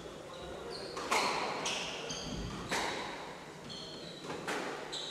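Squash rally: the ball is struck hard three times, about every second and a half, each hit echoing around the court. Short high squeaks from the players' shoes on the wooden floor come between the shots.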